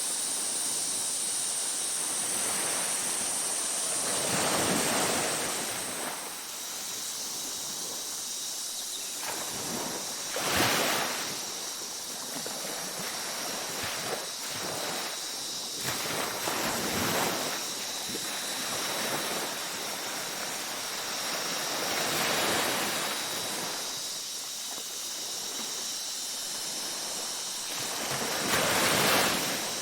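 Ocean waves breaking and washing on a beach, a surge about every six seconds, over a steady high-pitched tone.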